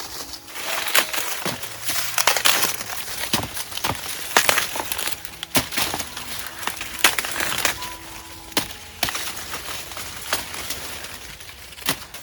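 Dry leaves and stalks rustling as crop plants are handled and picked by hand, with frequent irregular sharp snaps and cracks.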